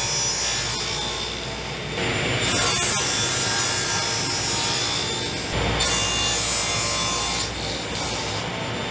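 Delta table saw running and crosscutting 3/4-inch birch plywood on a crosscut sled: a steady blade whine with the rasp of the cut. The sound shifts abruptly about two seconds in and again about halfway through.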